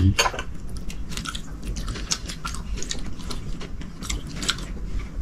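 Close-miked eating: biting and chewing food, heard as irregular small crisp clicks.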